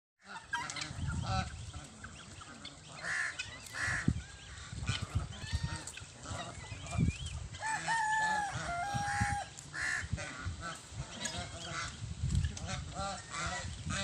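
A mixed poultry flock of chickens and helmeted guineafowl calling, with many short, scattered calls. One longer, drawn-out call comes about eight seconds in.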